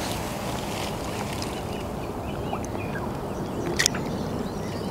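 Steady low outdoor noise at the water's edge, with a few faint bird chirps in the middle and one sharp click a little before the end.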